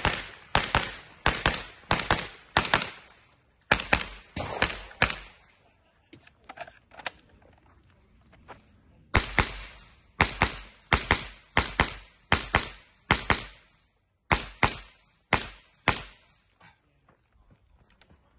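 .22 rimfire rifle fired rapidly, about twenty sharp shots in four strings at roughly two shots a second, with a pause of a few seconds between the second and third strings.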